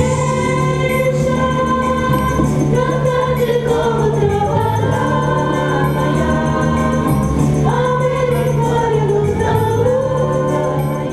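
Background music: a choir singing long held notes over steady low chords.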